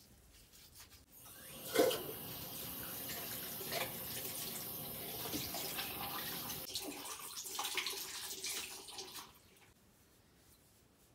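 Water running from a tap, turned on about two seconds in and shut off about nine seconds in.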